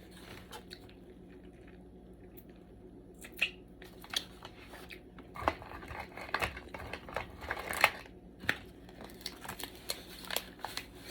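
Cooked blue crab shells being cracked and pulled apart by hand: scattered sharp snaps and crunches that come thicker and faster from about halfway in.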